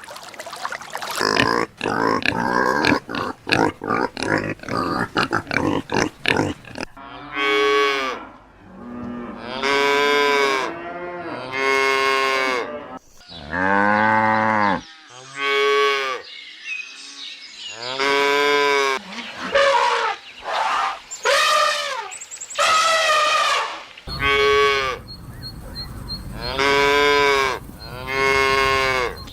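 Cattle mooing: about a dozen drawn-out calls of a second or so each, rising and falling in pitch, starting about seven seconds in. Before the calls, a fast run of clicks and rustling noise.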